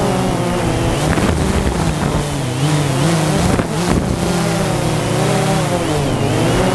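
An engine running, its pitch drifting up and down as the revs change, with wind buffeting the microphone.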